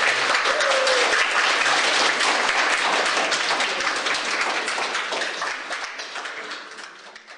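Audience applauding, the dense clapping fading out steadily toward the end.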